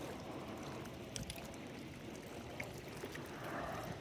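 Steady noise of river water lapping, with a few light clicks about a second in and again midway.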